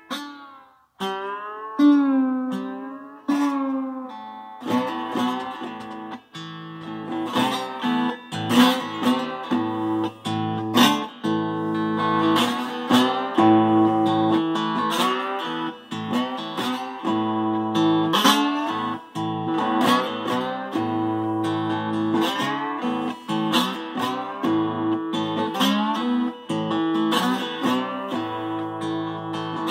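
Electric guitar played solo on the lap. The notes slide and waver in pitch for the first few seconds, then from about five seconds in a fuller passage of plucked notes rings over sustained low notes.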